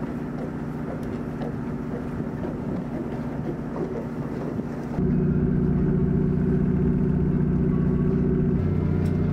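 A sightseeing ship's diesel engine. At first it is a steady low hum with a few fixed tones, and about five seconds in it becomes a louder, deeper drone as the ship runs under way, heard from on board.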